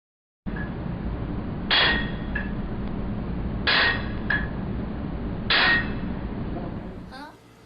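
Three heavy hammer blows on steel, about two seconds apart, each ringing with a fainter knock just after, over a steady machinery hum.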